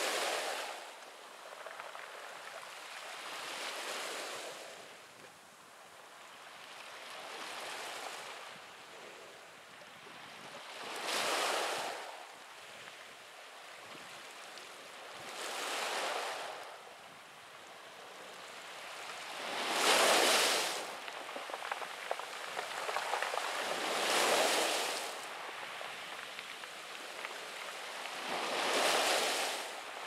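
Small waves breaking on a pebble beach and washing back over the stones, one surge about every four seconds, each swelling and falling away. The loudest break comes about two-thirds of the way through.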